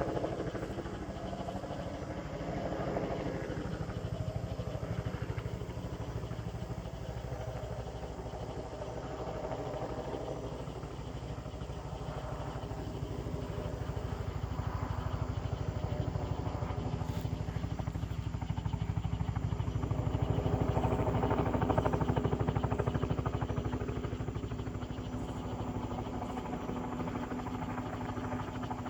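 Medical helicopter's rotor blades chopping in a fast, even beat over the turbine engine's whine as it comes in to land. The sound swells to its loudest about two thirds of the way through, then eases.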